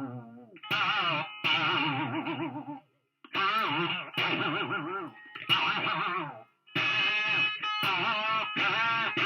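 Electric guitar played through a wah pedal and distortion into an amp: a string of strummed or picked bursts, each with a warbling, wavering pitch, broken by short silences.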